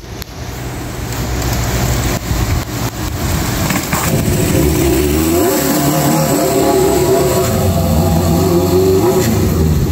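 Yamaha XJ550's inline-four engine running as the motorcycle is ridden. From about halfway it is revved up and down again and again, its pitch rising and falling.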